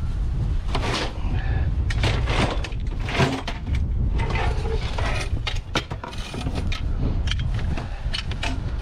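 Household junk being pulled out of a curbside rubbish pile and handled: irregular knocks, clatters and scrapes of objects over a steady low rumble.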